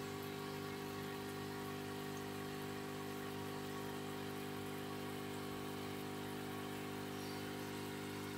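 Aquarium pump humming steadily, with a faint hiss of moving water.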